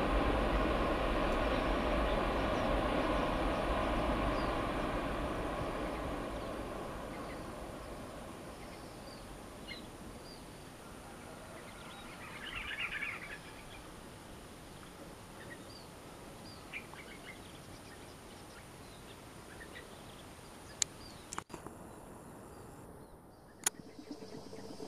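Twin-engine jet airliner's engines running on the runway, loud at first and fading steadily over about eight seconds as it moves away. Then faint outdoor ambience with birds chirping, and two sharp clicks near the end.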